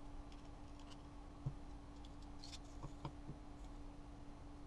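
A few faint clicks and taps of a metal garlic press worked over a glass jar as the last crushed garlic is knocked out into the oil: one about a second and a half in, then three in quick succession near three seconds, over a faint steady hum.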